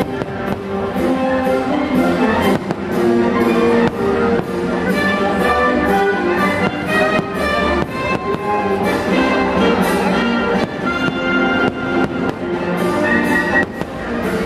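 Orchestral music with brass and strings, the soundtrack of a fireworks show, with repeated firework bangs and pops throughout. The music is the loudest sound.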